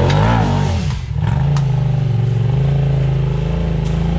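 Side-by-side UTV engine revving up and back down in the first second, then running steadily under load on the rocks, with one sharp knock about a second and a half in.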